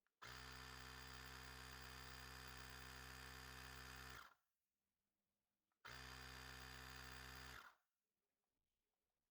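Small portable electric air compressor (a Baseus inflator) running with a steady buzz in two runs, about four seconds and then about two seconds, stopping between them.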